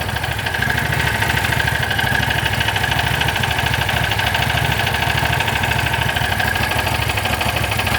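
Small engine of a Landmaster utility vehicle idling steadily, running as the donor machine while jumper cables charge a dead battery.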